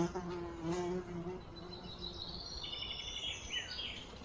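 A flying insect buzzes with a wavering drone that fades out about two seconds in. A bird then gives a short run of high chirps ending in a falling note.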